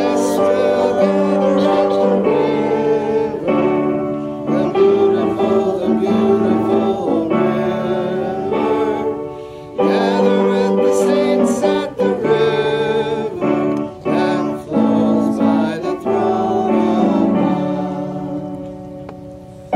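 Congregation singing a hymn together with piano accompaniment, in long held phrases with a brief pause about ten seconds in and another near the end.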